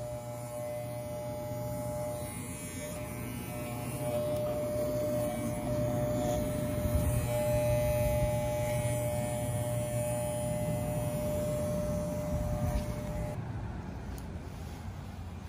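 Corded electric dog clippers running with a steady buzz as they trim the fur on a dog's chin and muzzle. The clippers switch off about 13 seconds in.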